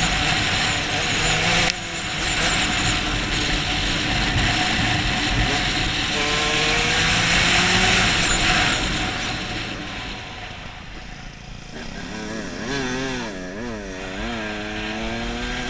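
Enduro dirt bike engine heard onboard from the rider's helmet, revving hard along a dirt track with a rush of noise. The revs drop suddenly about two seconds in and climb again later on. Near the end it runs quieter, with the revs wavering quickly up and down.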